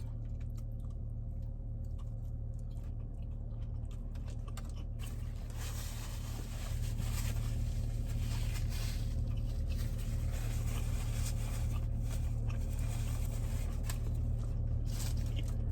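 A person chewing a large mouthful of food with soft, wet mouth clicks, over a steady low hum.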